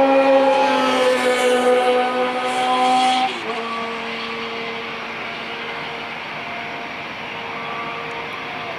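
Jet engines of an Airbus A340-313, its four CFM56 turbofans, with a steady droning tone. About three and a half seconds in, the tone falls in pitch and gets quieter, then holds steady.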